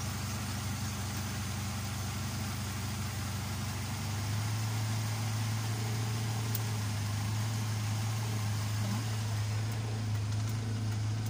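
Car petrol engine running at a steady idle, an even low hum that gets a little louder about four seconds in. This is the engine before repair, showing the abnormally high idle RPM fault.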